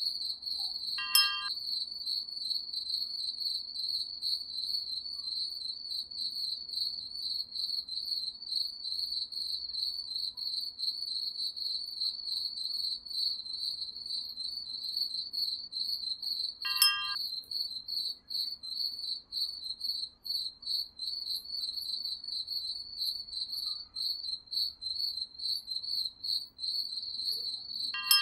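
Crickets chirping in a steady, fast, high trill. A short chime rings three times over it: about a second in, near the middle, and at the very end.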